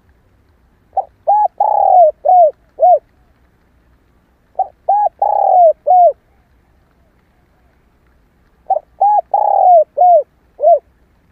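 Spotted dove hen cooing: three phrases about four seconds apart, each of about five short, arched coo notes with a longer note in the middle.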